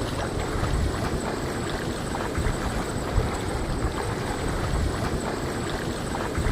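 Outdoor wind buffeting the microphone, with steady rushing noise and irregular low rumbles, over open floodwater.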